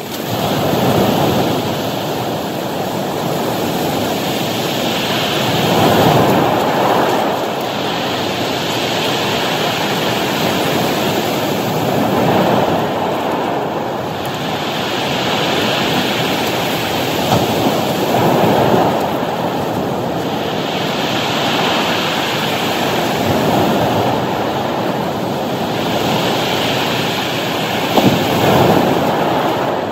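Surf breaking and washing up a pebble and cobble beach, a steady rushing that swells and eases every few seconds as each wave comes in.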